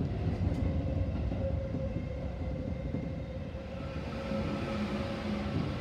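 Seibu Railway commuter train running on its rails, heard from inside the front car: a steady rumble of wheels and running gear, with steady whining tones growing clearer about two-thirds of the way in.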